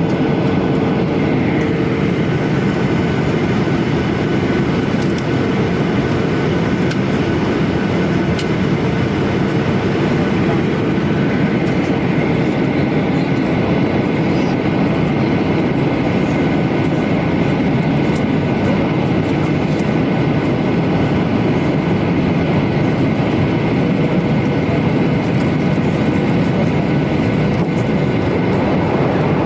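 Steady rumbling noise inside a moving vehicle, with a few faint steady tones and light scattered ticks.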